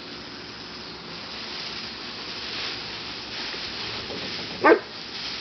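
Steady hiss of a propane torch flame heating the air inside a paper sky lantern, with one short, loud noise near the end.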